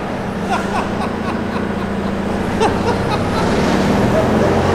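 Wood chipper's engine running steadily at speed, just started and idling up to drive the shredder drum.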